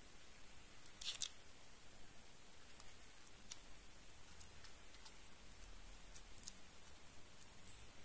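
Faint handling clicks from a small plastic USB wall charger turned over in the fingers, with a quick cluster of louder clicks about a second in and scattered light ticks after.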